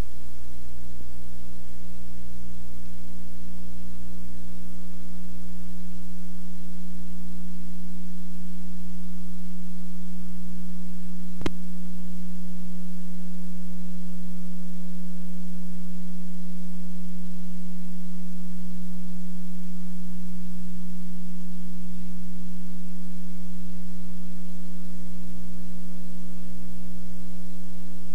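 Loud, steady electrical hum: a constant low-pitched drone that does not change, with a single click about eleven seconds in.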